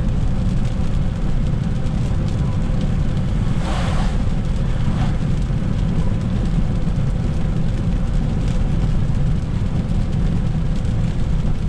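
Car cabin road noise while driving on a wet road in the rain: a steady low rumble from the tyres and engine, with a brief louder hiss about four seconds in.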